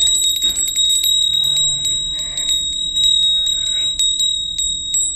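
A bell rung rapidly and continuously, a steady high ring struck over and over by its clapper, as the call that gathers the zoo's sheep at feeding time.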